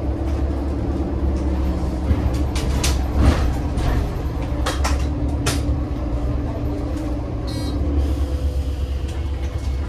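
Heuliez GX 137 city bus heard from on board: the steady low hum of its Iveco Tector 7 diesel engine, with several short clicks and knocks in the middle and a brief high rattle near the end.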